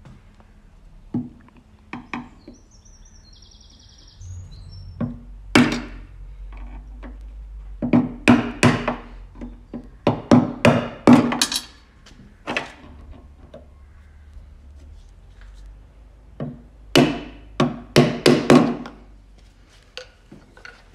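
Hammer striking a screwdriver held against spring clips to knock them onto threaded studs in a van's chassis rail. A few single taps, then quick runs of strikes about 8 to 11 seconds in and again about 17 to 19 seconds in.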